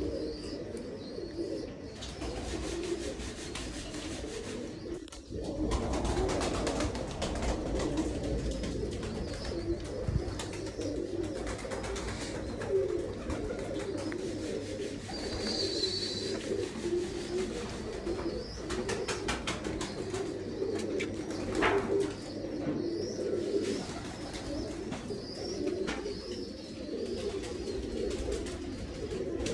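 Pigeons cooing, low wavering coos repeating one after another.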